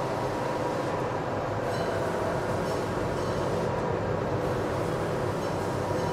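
Steady machinery hum and rumble in a large factory hall, with a few faint ticks over it.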